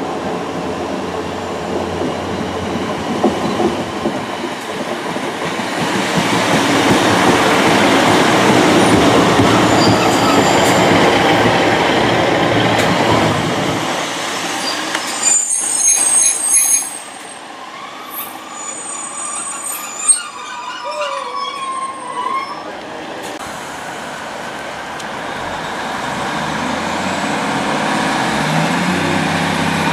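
A diesel multiple unit passing close on the platform line: rail and engine noise builds to a peak about eight seconds in and dies away after about fourteen seconds, with a brief high wheel squeal as the train clears. Near the end the engine of a second diesel unit grows louder as it approaches.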